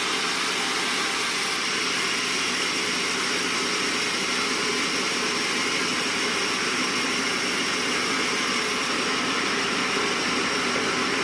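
Sawmill band saw machinery running steadily, a constant mechanical hum and hiss with no change in pace.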